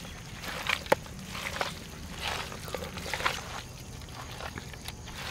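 Hands mixing raw chicken pieces in a wet marinade of curd and spice powders: repeated soft squishing strokes, about one a second, with a sharp click about a second in.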